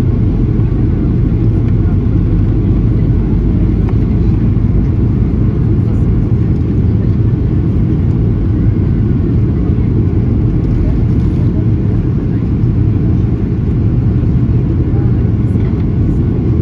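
Steady low drone of jet engine and airflow noise heard inside the cabin of a Boeing 737-800 in flight.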